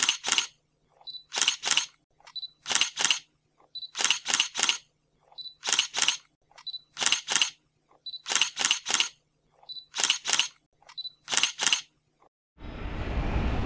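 Camera shutter sound repeated about every second and a half, about nine times, each a short beep followed by two or three quick clicks. Near the end it cuts abruptly to a steady noise.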